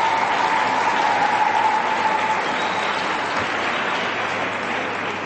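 Audience in an ice rink applauding, slowly dying down.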